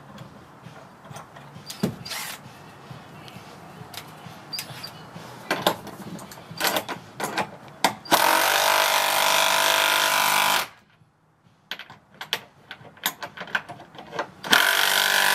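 Cordless impact wrench hammering a nut along threaded rod to pull two timber joists together: one burst of about two and a half seconds about eight seconds in, and a second starting near the end. Before it, light metal clinks and knocks.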